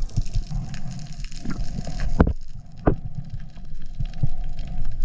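Underwater recording of water rushing and gurgling around the camera, with a few sharp knocks about two and three seconds in.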